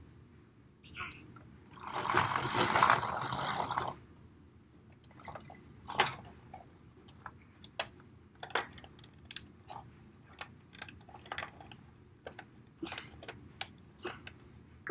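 Plastic toys handled on a glass tabletop: a scraping rush lasting about two seconds, about two seconds in, then scattered light taps and clicks as the pieces and a toy pickup truck are moved and set down.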